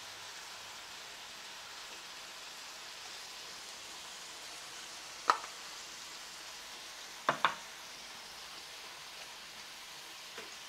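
Squid and vegetables sizzling steadily in a frying pan during a stir-fry. A few sharp knocks against the pan stand out: one about five seconds in, two in quick succession a couple of seconds later, and a faint one near the end.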